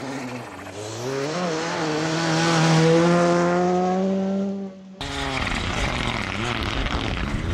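Rally car engine climbing in revs and then held flat out as the car passes on a gravel stage, loudest about three seconds in before dropping away. About five seconds in there is a sudden switch to a Citroën DS3 rally car sliding on loose gravel: its engine runs under a thick wash of gravel noise.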